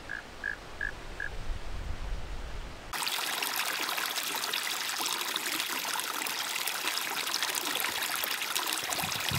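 Shallow stream of water trickling steadily through grass, cutting in abruptly about three seconds in. Before it there is a faint low rumble with four short, evenly spaced high chirps.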